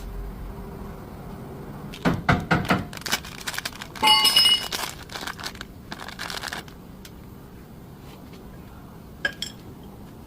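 Metal parts and tools clanking and clinking in short clusters, with one loud ringing metallic clink about four seconds in and a last single click near the end.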